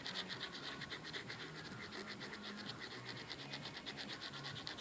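Silver metallic leather repair pen scratching on motorcycle jacket leather in many quick, faint back-and-forth strokes as an area is coloured in.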